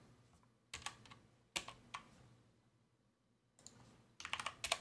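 Computer keyboard keys clicking: two single keystrokes in the first two seconds, then a quick run of typing near the end.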